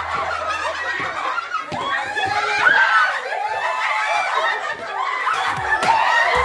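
A group of people laughing hard together, many voices overlapping.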